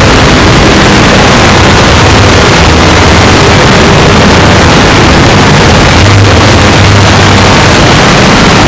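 A sneeze sound put through heavy stacked audio effects until it becomes loud, constant distorted noise clipped at full volume, with a low steady hum underneath.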